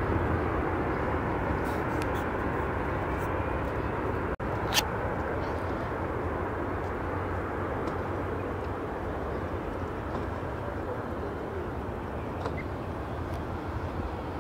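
Aircraft engines heard from an airport observation deck: a steady rumble and hiss that slowly fades. A brief dropout and a sharp click come about four and a half seconds in.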